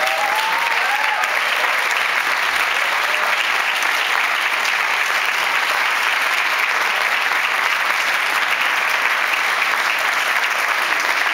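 Audience applauding, a dense, steady round of clapping from a roomful of people.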